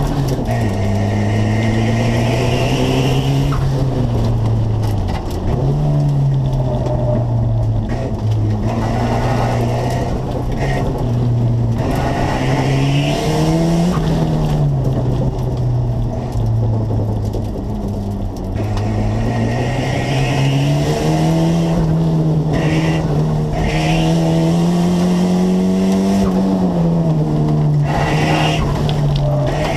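1980 Volvo 242's B23 turbo-intercooled four-cylinder engine, heard from inside the cabin while the car is driven hard, its pitch climbing and dropping repeatedly as the throttle opens and closes. Tires squeal briefly at several points in the corners.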